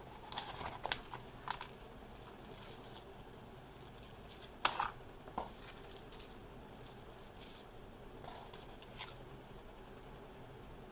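Packaging being handled during an unboxing: light rustling and small clicks, with one sharp knock a little under five seconds in.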